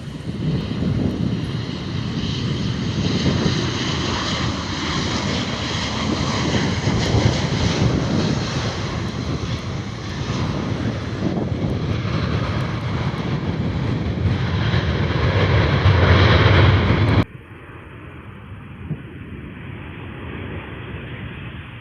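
Airliner jet engines passing close, a loud rushing roar that builds to a deep rumble over about seventeen seconds and then cuts off abruptly, leaving a quieter hum of wind and distant noise.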